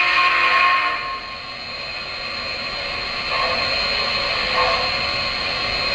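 Three-rail O-gauge model steam locomotive with its smoke unit puffing: a steady rushing hiss with a thin high whine, louder for about the first second and then dropping back.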